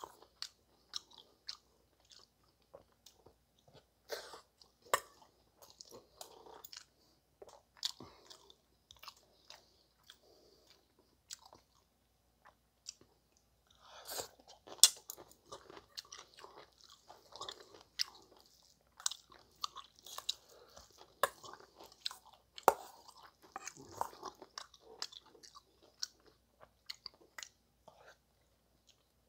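A man chewing curry and rice close to the microphone, with wet mouth and lip-smacking sounds. Sharp clicks and taps from his chopsticks and spoon on a stainless-steel bowl come through scattered, busiest in the second half.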